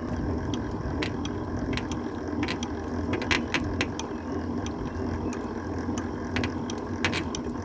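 Hand-cranked honey extractor spinning honeycomb frames in its metal drum. The crank gearing runs with a steady rumble and irregular sharp clicks.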